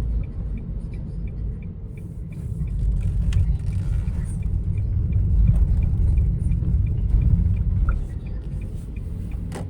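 Low road and tyre rumble of a Nissan Leaf driving, swelling and easing in loudness, with a faint regular ticking about three times a second.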